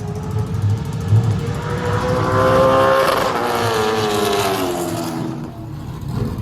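A late model stock car racing past on the speedway at full throttle. Its engine note climbs as it approaches, is loudest about three seconds in, then drops in pitch and fades as it goes by.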